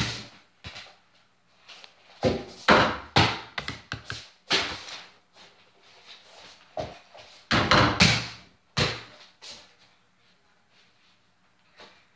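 Mini basketball striking an over-the-door hoop and its backboard, shaking the door it hangs on, then bouncing on the floor: a series of sharp thuds and knocks in two flurries, with a small room's echo.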